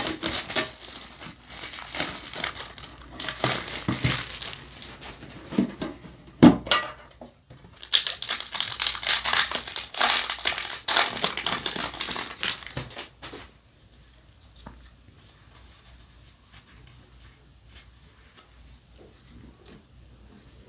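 Clear plastic wrapping and foil trading-card booster packs crinkling and tearing as they are opened, in bursts of sharp crackles with a louder snap about six and a half seconds in. The crinkling stops about thirteen seconds in, leaving only faint ticks of cards being handled.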